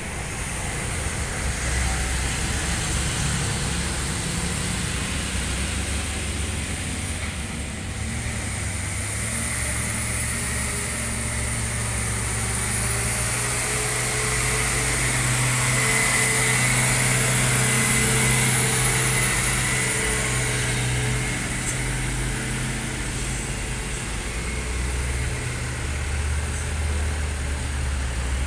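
Heavy diesel truck engines climbing a steep hill, with other road traffic passing. There is a steady low engine drone that is loudest around the middle, as an Isuzu Giga tanker truck pulls up the grade close by.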